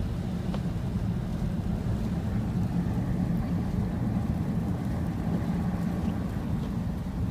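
Steady low road and engine rumble heard inside the cabin of a 2010 Ford Fusion driving slowly on a snow-covered road.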